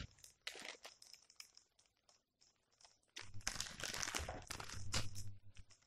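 A small clear plastic bag crinkling in the hands: a few light clicks at first, then a denser stretch of crinkling and rustling from about three seconds in that stops shortly before the end.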